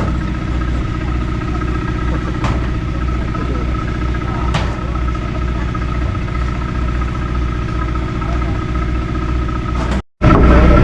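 An engine running steadily at an even, low drone, with a couple of faint clicks; the sound cuts out for a split second near the end.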